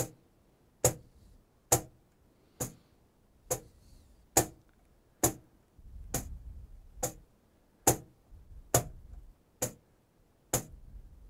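Cajon struck with the left hand in a slow, even exercise of two bass tones then two slaps, repeated, with single strokes a little under a second apart.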